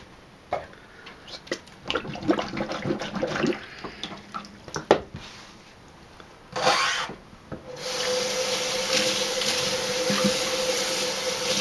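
A gloved hand sloshing through muddy walnut rinse water in a stainless steel sink, with scattered clicks and knocks, then a short splash. About eight seconds in a kitchen faucet is turned on and runs steadily into the sink.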